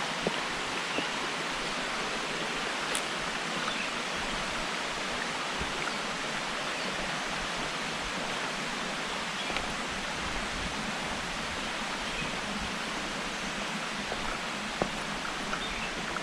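Steady rush of running water, unbroken throughout, with a few faint clicks over it.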